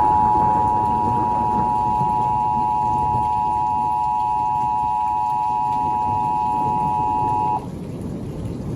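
Emergency Alert System attention signal playing from a TV: the two-tone alert, two steady pitches near 850 and 960 Hz sounded together as one long tone, which cuts off sharply about seven and a half seconds in.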